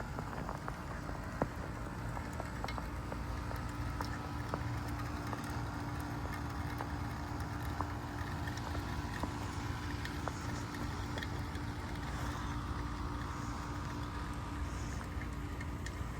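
2025 Carrier Comfort Series 4-ton heat pump in a defrost cycle: its LG scroll compressor hums steadily with a constant tone, under a sizzling, dripping hiss with scattered small ticks as the frost on the outdoor coil melts and steams off.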